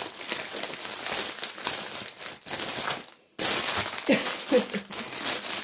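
Clear plastic bags crinkling and crackling as they are crumpled and squeezed by hand, in a dense, continuous stream. The crinkling breaks off abruptly for a moment about three seconds in, then resumes.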